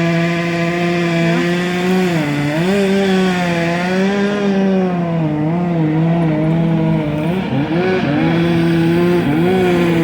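Chainsaw running at high speed while cutting, with steady engine tone. The pitch dips briefly about two seconds in and again around seven and a half seconds, then climbs back.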